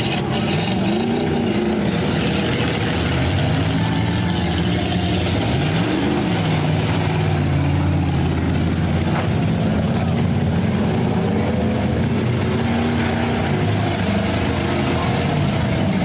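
Several demolition derby cars' engines running and revving together, their pitches rising and falling as they accelerate and back off, over a steady loud drone.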